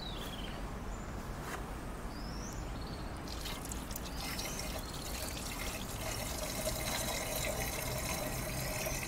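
Water poured from a bucket into the priming port of a portable petrol-engine fire pump, trickling and splashing into the pump casing to prime the suction line and keep air out. The pouring becomes fuller from about three seconds in.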